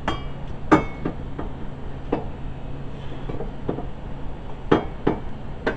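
Metal parts and tools clinking and knocking together, about half a dozen sharp hits, a couple with a brief metallic ring, over a steady low hum.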